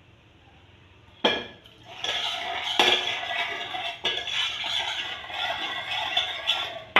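A single knock about a second in, then from about two seconds on a spoon stirring steadily in a saucepan, scraping and clinking against the metal, as sugar and salt are mixed into water for a syrup.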